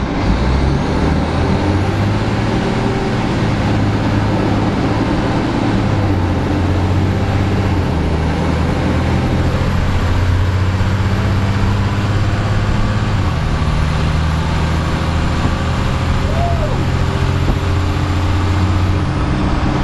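Diesel engine of a SEPTA transit bus running under way, heard raw from inside the bus, with a steady loud drone. The engine note changes in steps a couple of times, and a faint high whine comes in near the start and fades near the end.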